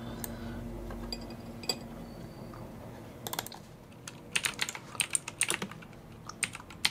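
Typing on a computer keyboard: a few scattered key clicks at first, then a quick run of keystrokes from about four seconds in, with a couple more near the end.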